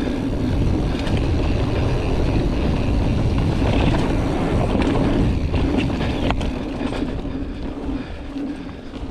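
Giant Trance full-suspension mountain bike descending a dirt trail at speed: a steady rush of knobby tyres rolling over dirt and wind on the action camera's microphone, with a few sharp knocks from the bike over bumps. The rush eases off a little near the end.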